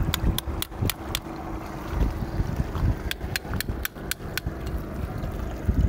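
Steel rebar bar prying and chipping at oysters on an oyster-crusted rock, metal knocking against shell in sharp clicks. There is a quick run of about five in the first second, then another run of about six a few seconds later.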